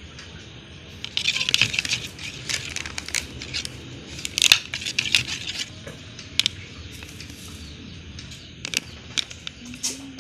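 Plastic spoon beating eggs in a plastic bowl: quick scraping and tapping strokes against the bowl's sides, busiest through the first half, then a few sharp separate clicks near the end.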